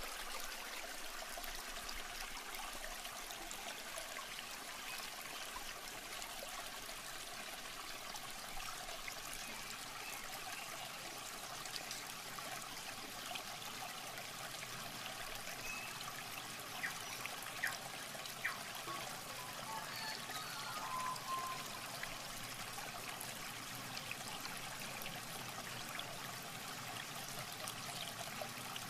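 Water trickling and pouring in a shallow muddy ditch as it is bailed out with a plastic bucket, with a few sharper splashes a little past halfway.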